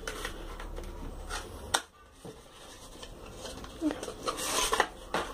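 Paper and thin cardboard being handled: a kraft-paper sleeve lifted out of a phone box and opened, with a sharp click about two seconds in and rustling of the sleeve and leaflets near the end.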